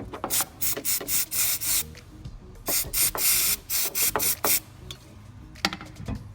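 Aerosol brake cleaner hissing in short bursts onto a carbon-fouled oxygen sensor: several quick sprays, a longer one about three seconds in, then a few more quick ones.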